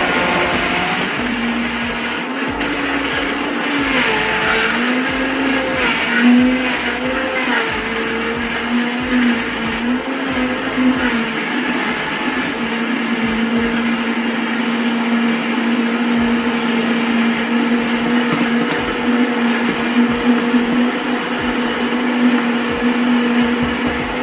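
Countertop blender running, blending a thick load of cilantro, jalapeños, mayonnaise, lime juice and Parmesan into aji verde sauce. The motor's pitch wavers up and down through the first half as the load shifts and catches on the blades, then holds steady.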